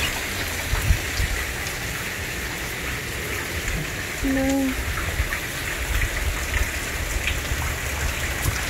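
Steady heavy rain falling, an even hiss of rain on the roof and ground.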